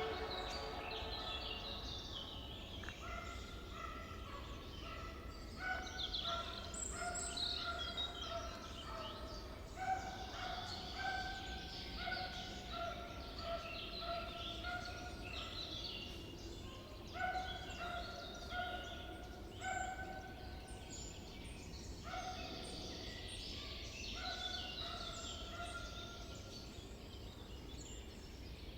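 A chorus of wild birds calling. One bird repeats a steady call of held notes, one every second or two, over many faint, quick, high chirps from other birds.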